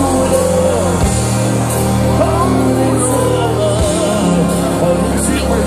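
Live band music played loud through a festival PA and heard from within the crowd: long held bass notes under a sung vocal line, with the bass note changing about a second in and again near the end.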